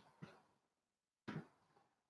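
Near silence broken by a few faint taps of typing, with two at the start and a sharper one just over a second in.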